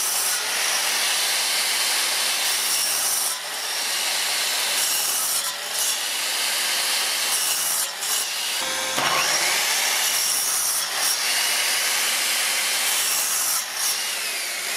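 Parkside PZKS 2000 B2 sliding mitre saw, its 2000 W motor driving a 24-tooth blade through a thick wooden beam, with a vacuum running on the saw's dust port. The sound is a continuous loud sawing, dipping briefly a few times.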